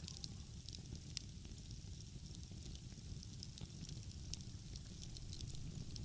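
Wood fire crackling, with scattered sharp pops and ticks over a steady low rumble.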